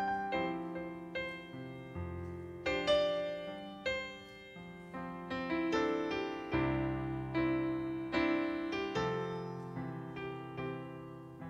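Solo piano playing a slow, gentle piece: notes and chords struck one after another, each left to fade.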